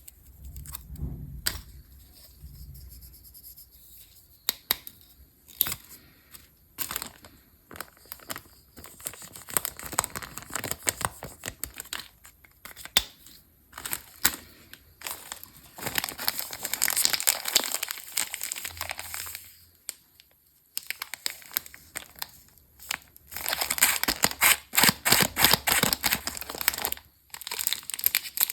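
Candy wrappers crinkling and tearing open close to the microphone, in crackly bursts with short pauses between them.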